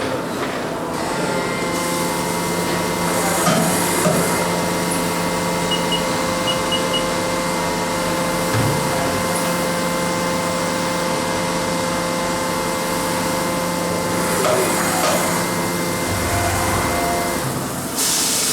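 Milling machine running with several steady whining tones that stop shortly before the end, with a few knocks along the way and a loud hiss near the end.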